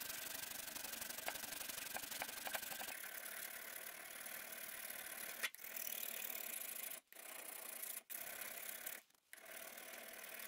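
Steel hand file scraping back and forth across the rusty steel head of an old smith's hammer, an even rasping sound that cuts out abruptly for short moments several times in the second half.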